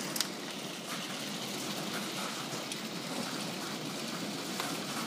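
Heavy hail falling: a steady hiss of hailstones with scattered sharp clicks of single stones striking hard surfaces.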